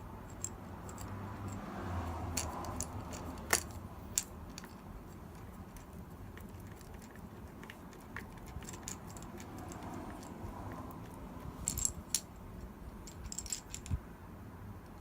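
Small screws being driven into an iMac's chassis with a screwdriver: scattered light metallic clicks and ticks, with the loudest click about three and a half seconds in and quick clusters of clicks near the end.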